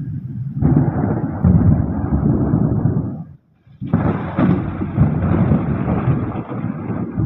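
Thunder rumbling loudly. It breaks off briefly about three and a half seconds in, then another loud rumble starts abruptly.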